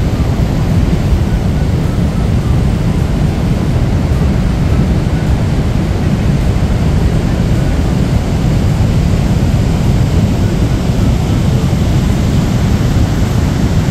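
Steady, loud roar of Niagara's Horseshoe Falls, a continuous rumble heaviest in the low end with no breaks.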